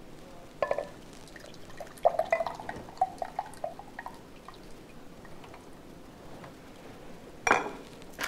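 Thick tomato sauce glugging and plopping out of an upturned glass jar into a stainless steel pot, in a run of short pulses. Sharp knocks, one about half a second in and a louder one near the end, as the jar and pot are handled.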